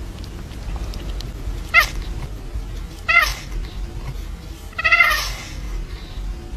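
A cat meowing three times, the last meow the longest and loudest.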